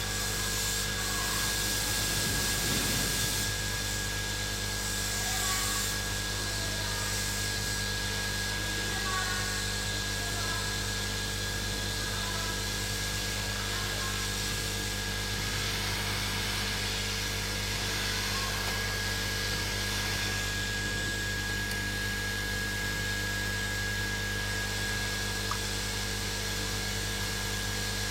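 Hot-air rework station blowing steadily, a hiss with a thin high whine and a low hum, heating the board to soften underfill glue for scraping.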